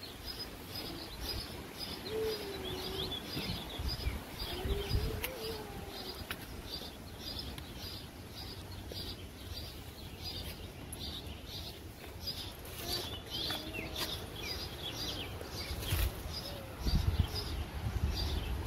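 Birds calling: a bird repeats a short high chirp about twice a second, with a few lower gliding calls now and then. Wind buffets the microphone in low rumbles a few times.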